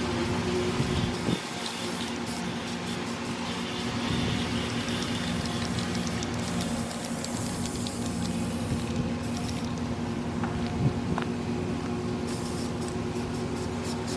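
Aerosol spray paint can hissing as it sprays, cutting off and starting again in short bursts through the second half, over a steady low hum.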